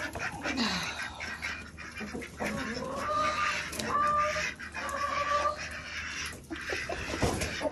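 A mixed flock of hens, mallard-type ducks and a domestic goose calling and scuffling as they crowd out of the coop, with three drawn-out calls of even pitch near the middle.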